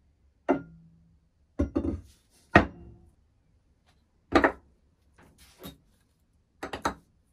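Short lengths of stainless steel square tube being set down one after another on a plywood workbench: a string of clanks and clatters, some with a brief metallic ring, the sharpest about two and a half seconds in.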